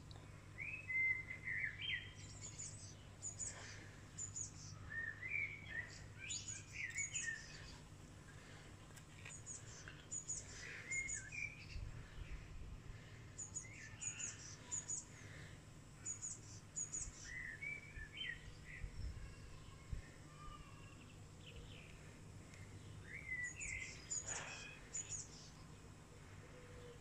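Wild birds singing in short, repeated chirping phrases, with a faint steady low hum underneath.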